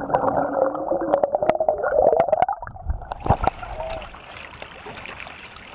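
Muffled underwater sound, heard through a camera held below the surface: gurgling water with a wavering tone and many sharp ticks. About three seconds in it switches to open air, with wind and choppy sea water hissing.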